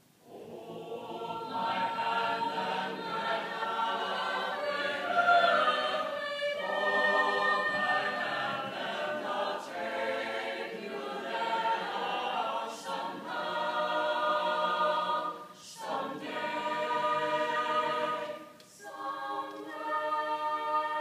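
Chamber choir singing, entering together out of silence; the singing breaks off briefly between phrases about six, sixteen and nineteen seconds in.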